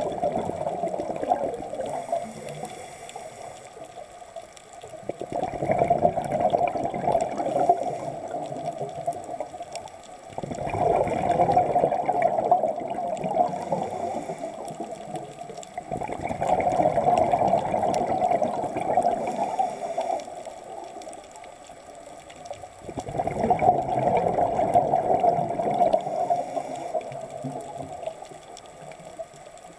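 Underwater breathing of a diver: a bubbly rush of exhaled air about every six seconds, four times over, with a faint hiss between the exhalations.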